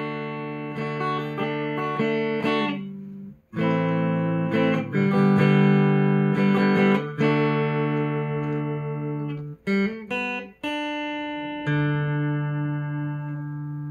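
Clean electric guitar chords, strummed and left to ring, played through a Joyo American Sound pedal straight into an Amplifi 75 full-range flat-response cabinet with no impulse response loaded: the dry reference tone. A run of held chords, with a short break about three and a half seconds in and a couple of quick chord changes near ten seconds.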